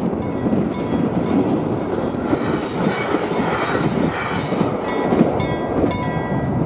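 A passenger train passing through a level crossing at speed, its wheels rattling over the rail joints, with a steady rushing noise throughout.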